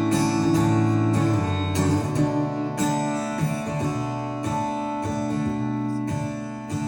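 Acoustic guitar strumming chords that ring on, with no singing, in the instrumental break of a folk-pop song played live.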